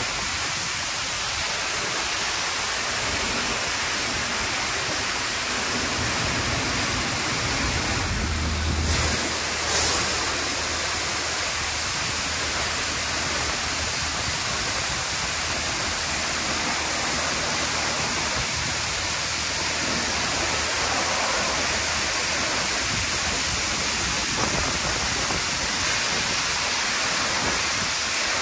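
Touchless automatic car wash spraying high-pressure water over a car: a steady hiss of spray, with a low pump hum joining in the middle and two brief louder surges about eight and ten seconds in.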